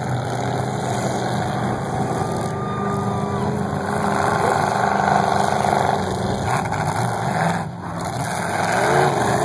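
Engines of several demolition derby cars running and revving together, a steady, continuous mechanical din with no single standout crash.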